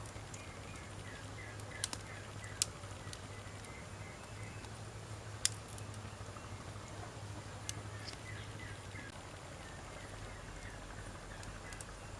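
Burning firewood crackling, with a few sharp pops (four stand out, the loudest about five and a half seconds in) over a steady low hiss of the fire.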